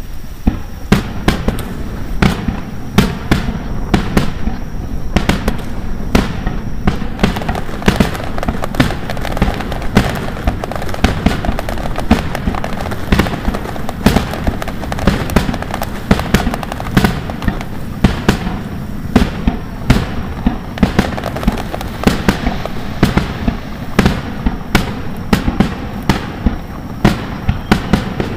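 Aerial fireworks display: a dense barrage of shell bursts, sharp bangs coming several times a second over a continuous rumble and crackle.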